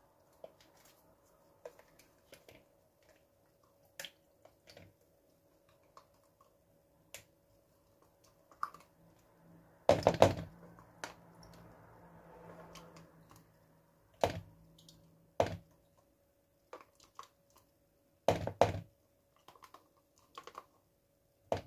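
A spatula scraping yogurt out of a plastic tub and tapping against a plastic mixing bowl: scattered light clicks and knocks, with a few louder knocks about ten, fourteen and eighteen seconds in.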